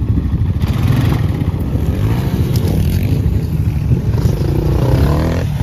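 ATV engine running close by as it rides over rough dirt, with a dirt bike's engine also running; the engine pitch rises about four to five seconds in.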